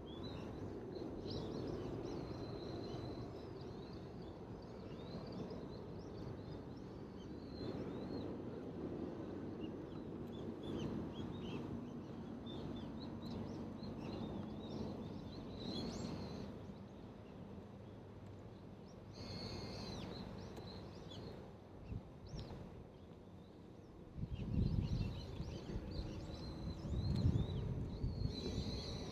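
Wild birds chirping and calling in short notes over a steady low rumble. About five seconds before the end, loud irregular gusts of wind start buffeting the microphone.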